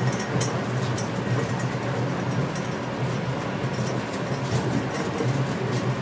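Train running steadily at speed, heard from inside the front car: a constant running rumble and hum with faint scattered clicks.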